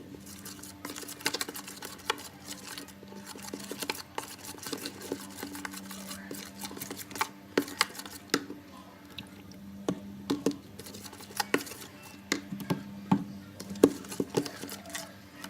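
Slime being stirred and worked in a bowl: irregular sticky clicks and crackles over a faint steady hum.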